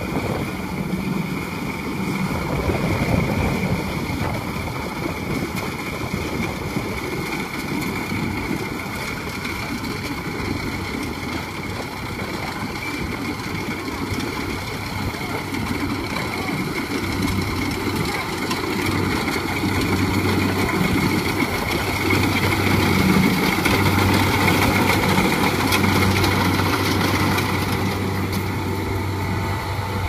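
Kubota rice combine harvester's diesel engine running steadily while it cuts through a rice paddy. Its hum grows louder in the second half as the machine draws nearer.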